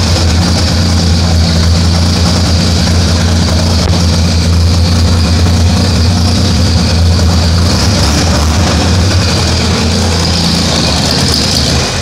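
Jaguar 4.2-litre DOHC straight-six, converted from fuel injection to twin carburettors, running steadily on its first start-up.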